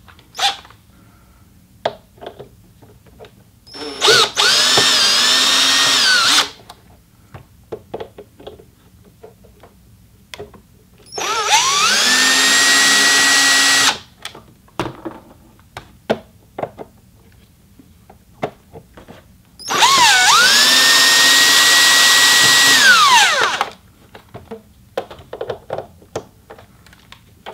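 Hitachi cordless drill/driver backing screws out of a sewing machine's base plate, running in three bursts of two to four seconds each. In each burst the motor whine climbs to a steady pitch, then stops. Light clicks and handling knocks come between the runs.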